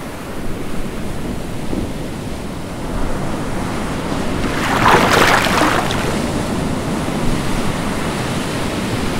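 Ocean waves and wind rushing steadily, with one louder surge of surf that swells and fades about halfway through.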